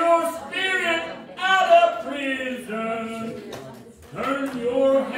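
A man singing unaccompanied, holding long notes, with a few hand claps alongside.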